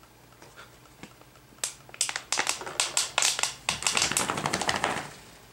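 A dog shaking itself hard, giving a fast run of sharp flapping clicks for about three seconds that grows denser toward the end, then stops.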